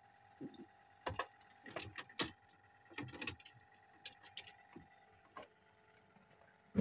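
Fish splashing and slapping about in the water of a boat's livewell: a dozen or so irregular wet slaps and knocks. Under them a faint steady electric hum that drops away about five seconds in.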